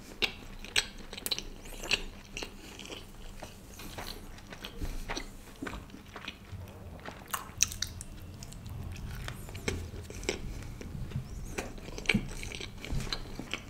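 Chewing a mouthful of chicken shawarma wrap, with many short, irregular mouth clicks.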